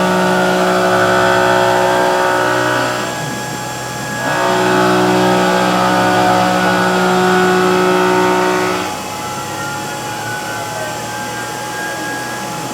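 CNC mill cutting 7075-T6 aluminium: a steady, tonal whine from the spindle and cutter in the work. The sound drops about three seconds in, returns a second later, and falls again about nine seconds in, when sliding tones from the machine's moves are heard.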